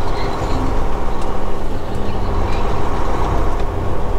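Semi-truck's diesel engine running steadily as the truck rolls slowly, heard from inside the cab, the sound sitting low in pitch.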